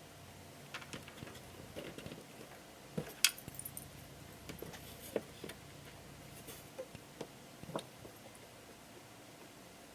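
Small wooden parts of an organizer tapping and clicking as they are handled and fitted together by hand: a scatter of light knocks, the sharpest a little after three seconds in.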